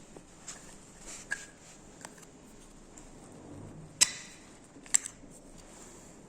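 Handling of a Foton-9M motion detector and its mounting bracket: faint scrapes and small knocks, with two sharp clicks about four and five seconds in.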